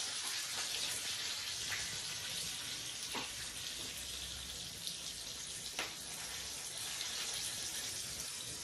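Tadka of curry leaves, red chillies and dals sizzling in hot oil in a small pan while it is stirred: a steady hiss with a few sharp ticks.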